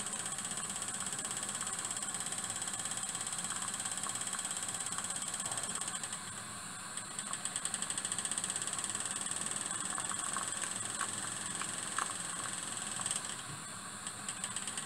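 Scratch-built model steam engine, a single-cylinder double-acting slide-valve engine on a copper locomotive-style boiler, running fast with a rapid, even steam exhaust beat. The beat drops away briefly about six seconds in and again near the end, with a few light clicks shortly before the second drop.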